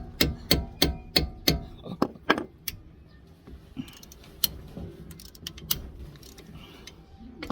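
Hammer striking a spanner in quick, even blows, about three a second, to shock loose a tight 18 mm brake bolt, then stopping after a couple of seconds. Lighter metal clicks and rattles of tools follow.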